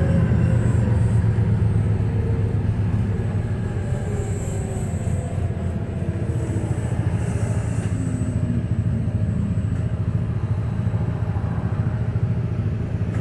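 Volvo B215RH hybrid bus heard from inside the cabin while moving: a steady low drivetrain rumble with road noise. It eases off over the first few seconds and then holds steady, with faint rising and falling pitch glides.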